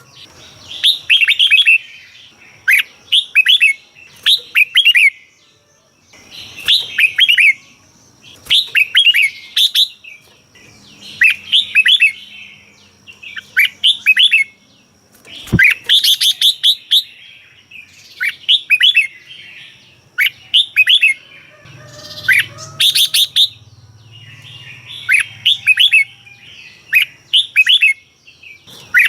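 Red-whiskered bulbul singing: short phrases of quick whistled notes, repeated every second or two. There is one sharp knock about halfway through.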